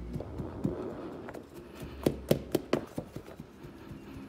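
A mat press tamping beetle substrate down in a plastic breeding case to even it out: a run of short taps and knocks, with a quick cluster of four or so about two seconds in.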